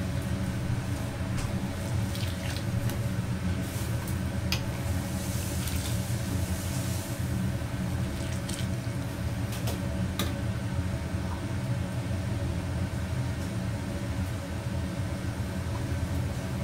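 Steady low rumble of a restaurant gas wok range running under the wok. Around the middle, sauce is ladled into the wok with a splashing pour, and a metal ladle clicks sharply against the wok a few times.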